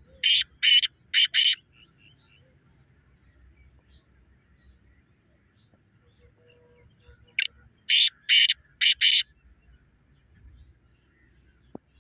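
Black francolin (black partridge) calling twice, once at the start and again about seven and a half seconds in. Each call is a brisk harsh phrase of a short opening note followed by four loud notes, the last two close together.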